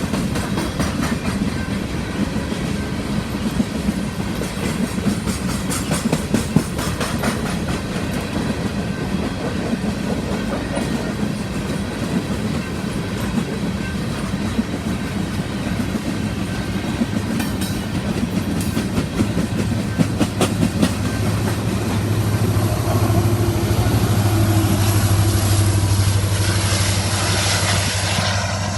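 Empty coal train hopper cars rolling past, with a steady rail rumble and repeated clickety-clack wheel clicks over the rail joints. In the last several seconds a low steady drone builds and the sound grows louder.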